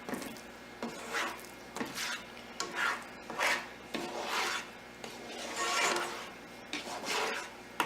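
A utensil scraping around a pan, stirring flour into melted butter to blend a roux. The strokes are rhythmic, coming a little over once a second.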